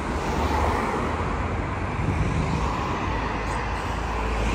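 Road traffic: a steady rush of passing vehicles over a low rumble, building just before and holding steady throughout.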